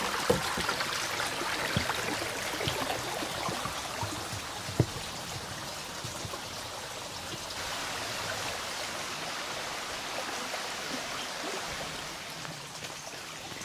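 Kluczwoda brook babbling steadily over its shallow bed. In the first five seconds a few knocks of footsteps on the boards of a wooden footbridge.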